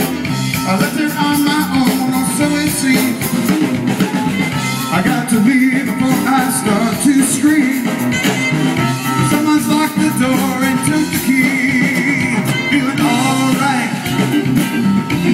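Live band playing amplified music through a stage PA, with electric guitar.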